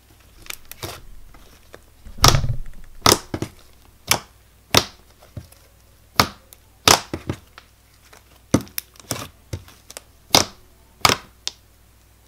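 Fingers pressing and poking white glue slime against a table, making an irregular series of sharp sticky pops and clicks, about one or two a second, the loudest about two seconds in.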